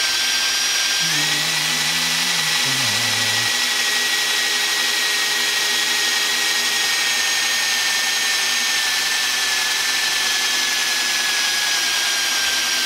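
Cordless drill running steadily under load, its bit boring into the metal tube of a golf cart's upper control arm. The motor whine sags slowly in pitch as the drill's battery runs down.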